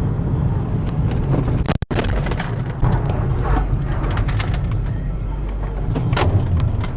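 Low rumble of a car's engine and tyres heard from inside the cabin while driving on a snowy road, with a brief cut-out just under two seconds in and scattered clicks and knocks later on.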